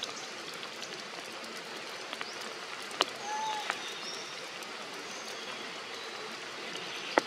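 Steady rain falling on forest foliage, an even hiss with occasional sharp taps of heavier drops.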